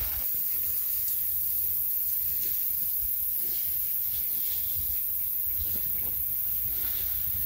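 Steady outdoor ambience: a constant high-pitched hiss over a low, uneven wind rumble on the microphone, with a few faint rustles.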